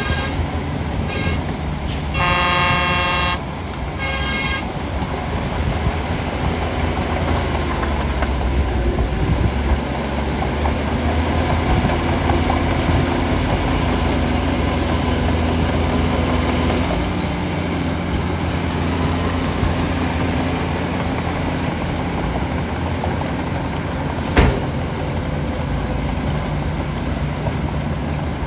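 Diesel engine of a Shantui DH17 bulldozer running steadily as it pushes earth. A horn sounds for about a second and a half near the start, with a few short toots around it, and there is one sharp knock near the end.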